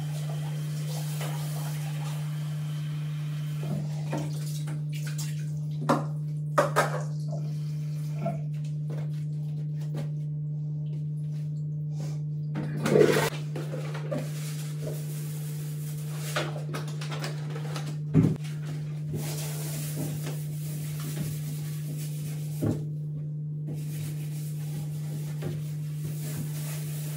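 Hand cleaning of a bathroom sink and bathtub: scattered short knocks and clatters of objects against hard fixtures, loudest about halfway through, over a steady low hum.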